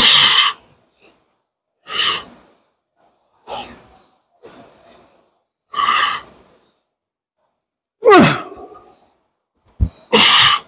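A man's forceful exhales as he works through cable pulldown reps, one hissing breath about every two seconds. Near eight seconds one comes out as a falling voiced grunt, and a short low thump sounds just before ten seconds.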